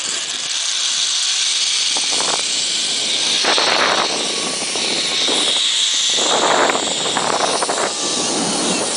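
Zip-line trolley pulleys running along the cable with a steady, high whirring hiss, rising in louder rushing surges about three and a half and six and a half seconds in.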